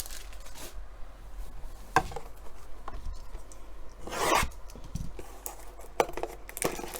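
A cardboard trading-card blaster box being opened and its packs handled: scattered clicks and rubbing, with one longer rasping scrape about four seconds in.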